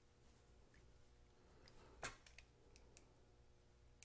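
Near silence, broken by a few faint clicks as parts of a desoldering gun's clear solder collection tube are handled and fitted together; the strongest click comes about two seconds in.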